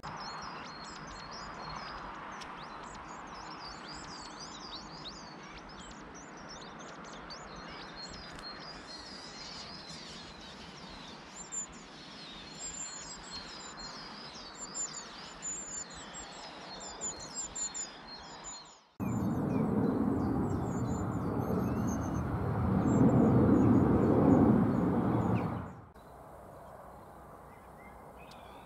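Long-tailed tits calling at the nest: a rapid stream of high, thin chirps that grows busier and louder over the later seconds. After a cut, a loud rushing noise runs for about seven seconds, then gives way to a low steady outdoor background.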